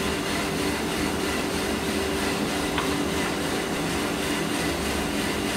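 Small drum coffee roaster running: the rotating drum tumbles the beans with a steady rattling rumble over the hum of its motor and fan. The beans are in the drying stage, turning white, with no cracking yet.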